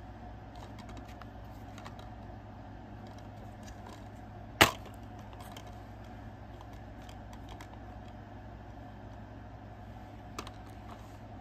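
Plastic DVD case being handled, with faint scattered clicks and taps and one sharp click about four and a half seconds in, over a steady low hum.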